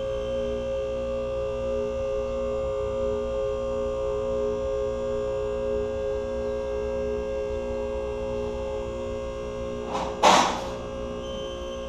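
Electric hydraulic pump motor of a four-post car lift running steadily with a humming tone as it raises a car, with one loud clack about ten seconds in.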